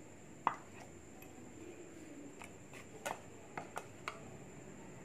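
A handful of light taps and clinks from a stainless steel mixer-grinder jar as it is handled, the loudest about half a second in and a few more near the three- to four-second mark.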